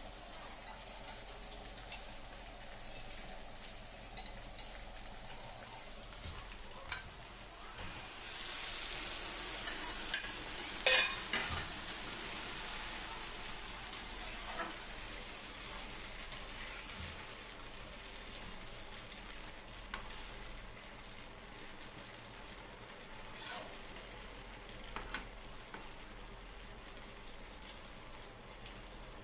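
Chicken pieces sizzling in sauce in a frying pan on a gas stove while a metal spatula stirs and scrapes them, tapping against the pan. The sizzle swells about eight seconds in, and a short clatter of spatula knocks around eleven seconds is the loudest moment.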